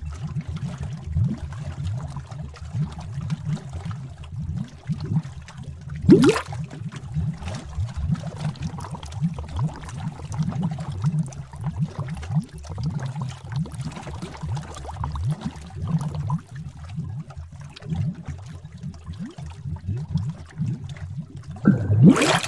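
Bubbling cauldron sound effect: thick liquid bubbling and gurgling steadily in low pops, with a bigger bubble bursting about six seconds in and another near the end.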